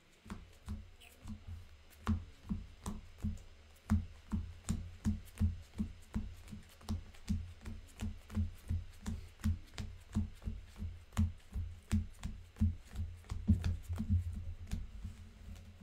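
Rhythmic soft thumps and clicks, about three a second: a deck of playing cards being shuffled by hand on a table.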